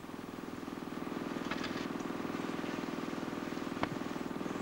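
Fire pump engine running steadily at constant speed, feeding the hose line during mop-up, with a couple of faint clicks.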